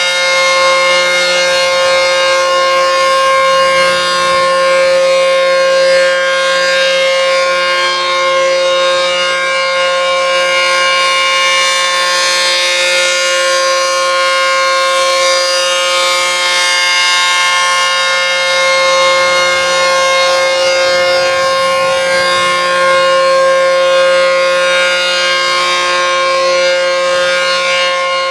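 ACA P-15 rotating warning siren sounding a steady alert tone at full speed, one unchanging pitch with its overtones, swelling slightly in loudness.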